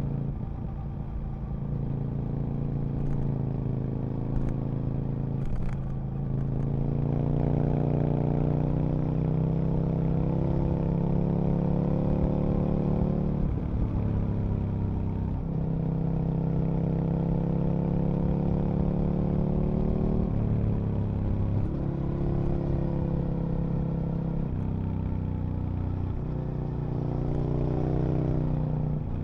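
Aprilia RSV Mille RP's 60-degree V-twin engine, heard from the rider's seat, pulling hard. Its pitch climbs steadily through the revs, then drops off sharply several times as the throttle closes or it shifts gear, before pulling up again.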